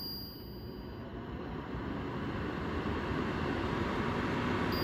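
Tredy TD-1500 HEPA air purifier's fan running, a steady rush of air that grows louder over the first couple of seconds, then holds. A faint high beep sounds at the start and twice near the end.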